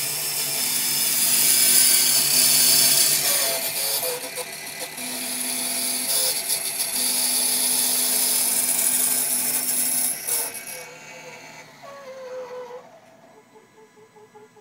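Automated key-duplicating kiosk's cutter milling a key blank: a loud, high-pitched grinding over a steady motor hum. It stops about ten seconds in.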